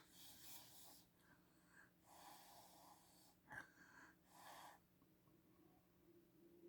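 Near silence with a few faint sniffs, about four in all, as a person smells cologne sprayed on the skin.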